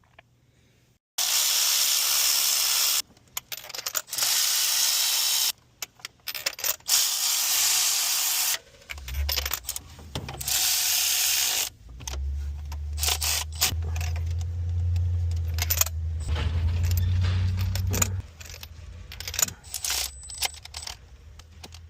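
Spark plug and ignition coil replacement on a VW Tiguan engine: several abrupt bursts of loud hissing, metal tools clicking and clinking, and a low motor-like hum through the middle and latter part.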